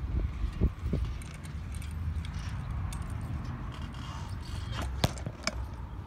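Low steady rumble of wind and movement on a phone's microphone, with a few sharp clicks and knocks from handling, two about a second in and two more near the end.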